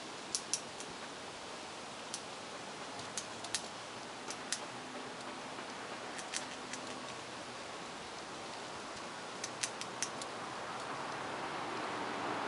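Gray squirrel eating, its chewing heard as sparse sharp clicks in small irregular clusters over a steady hiss. The hiss swells near the end.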